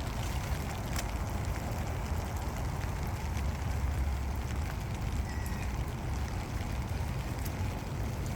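Steady rain falling: an even wash of noise over a low rumble, with a few sharp drip-like ticks.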